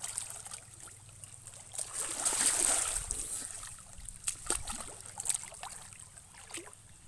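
Water sloshing and splashing, with a louder swell of splashing about two to three seconds in and a few short, sharp splashes after it.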